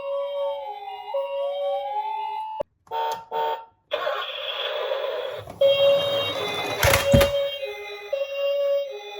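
Toy ambulance's electronic two-tone hi-lo siren, alternating a higher and a lower note. It cuts out a few seconds in, a rushing noise follows for about a second and a half, and then the siren starts again. A sharp click comes about seven seconds in and is the loudest sound.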